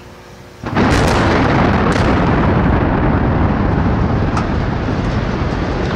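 Explosive demolition charges going off at the base of two concrete cooling towers: a sudden loud blast about three-quarters of a second in, then a sustained rumble broken by further sharp cracks.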